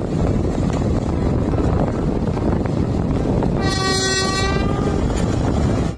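Heavy mining machinery at a shovel loading a haul truck, a loud steady rumble throughout. A horn sounds once, beginning a little past halfway, as one steady blast of about a second and a half.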